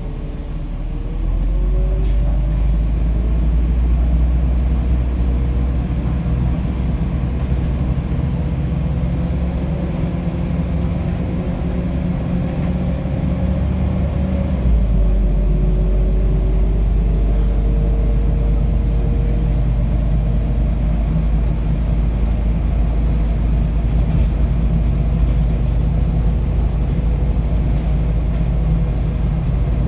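MAZ-105 city bus heard from inside the passenger cabin while under way: its diesel engine and drivetrain keep up a steady low rumble with a faint gliding whine. The rumble grows louder about a second in, and its note shifts abruptly about halfway through.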